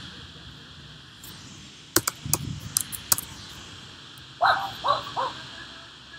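A run of sharp computer keyboard clicks about two seconds in, as a word of code is deleted and retyped. About a second after them, an animal calls three times in quick succession.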